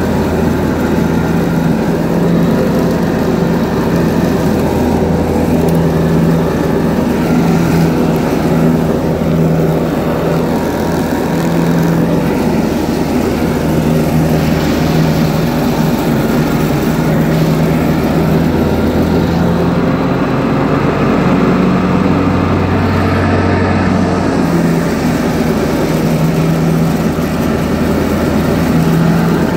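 John Deere 445 garden tractor mowing wet, tall grass: the engine runs steadily under load with the mower deck blades spinning, and the engine note wavers slightly as it works through the grass.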